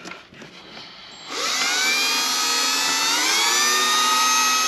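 Electric drill with a 3/16-inch bit boring a hole in a snowmobile's bulkhead. The motor whines up about a second in, runs steadily and rises in pitch about halfway through.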